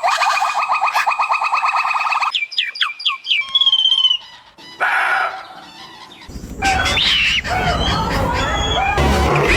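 A run of different animal calls: a fast trilling call of about ten notes a second for the first two seconds, then short falling chirps and a warbling bird-like whistle, then after a short lull a louder, denser passage of calls over a low rumble.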